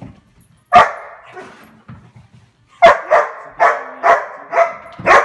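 Dog barking: a single bark, then after a pause a run of about six barks, roughly two a second.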